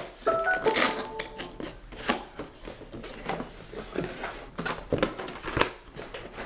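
Cardboard box being opened by hand: flaps and lid lifted and folded back, giving scattered scrapes, taps and rustles. A brief squeaky sound of a few short steady tones comes about half a second in.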